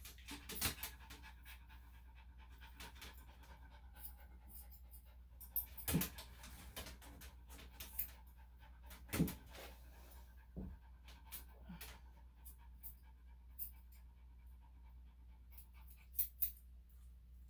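A small senior Maltese/Shih-Tzu dog panting, with scattered short sharp clicks throughout, a few of them louder and a quick pair near the end.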